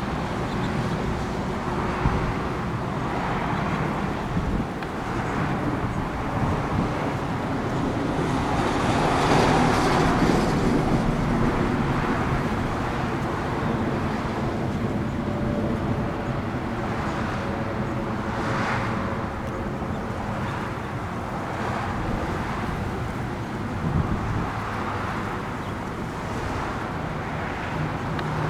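Road traffic: a steady roar of cars and tyres with low engine hum. Passing vehicles swell louder, most strongly about a third of the way in and again a little past the middle.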